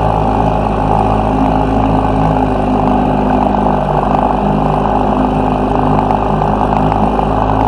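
Old Johnson outboard motor running steadily at low, no-wake speed as the boat moves along, a constant engine hum.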